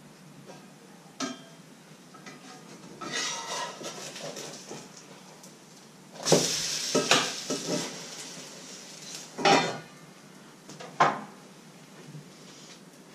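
Metal pan lid clattering against a frying pan as it is lifted off and put back. There is a short sizzle from the pan when the lid comes up, about six seconds in, and two sharp clanks later on.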